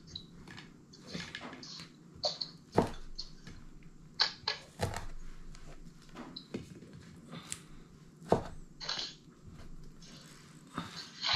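Kitchen knife knocking on a wooden chopping board: irregular single knocks roughly a second apart, with short scraping and rustling sounds between them as food is cut and pushed aside.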